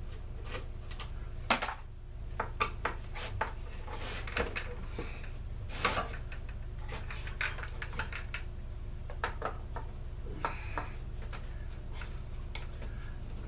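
Irregular clicks, clinks and a few short scrapes of hand tools and small parts being handled while bolts are taken out of a Stihl BG 56 C leaf blower during disassembly.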